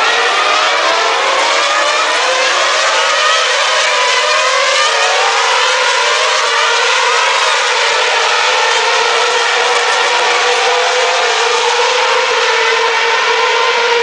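Several Formula One cars' V8 engines heard together on track, many engine notes overlapping and gliding up and down as the cars pass and change gear. A steadier note holds through the second half.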